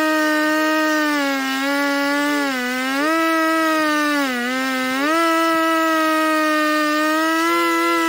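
Husqvarna 395XP two-stroke chainsaw running at full throttle while ripping lengthwise through a log in an Alaskan mill. Its pitch sags and recovers three times in the middle as the engine bogs under the load of the cut. The chain is dull and cutting slowly; the operator says he should have filed or changed it before this cut.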